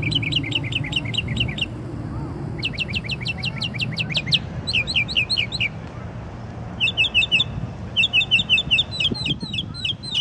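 A songbird singing a series of phrases, each a quick run of one note repeated several times a second. The note changes from phrase to phrase, with short pauses between them.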